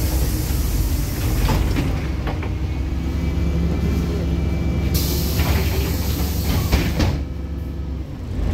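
Cabin noise inside a LiAZ-5292 city bus: a steady low diesel drone with rattles and road noise as the bus slows almost to a stand. About five seconds in there is a couple of seconds of hiss.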